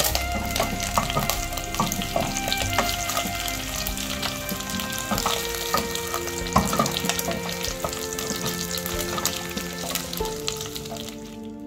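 Beef chunks and fried onions sizzling in hot oil in a stainless steel pot while being stirred with a wooden spatula, with many small spattering crackles. The sizzle dies down near the end.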